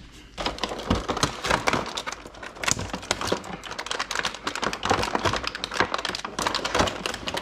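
Clear plastic egg carton being handled and pried open in a refrigerator: a rapid, irregular run of crackles and clicks from the stiff plastic.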